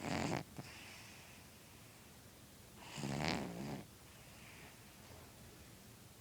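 Cat snoring in its sleep, with one snore about every four seconds: the end of one at the very start, and a full one about three seconds in.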